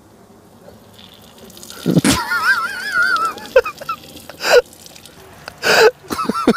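A person's high-pitched wheezing laugh, starting about two seconds in. Wavering squeals alternate with sharp, breathy gasps.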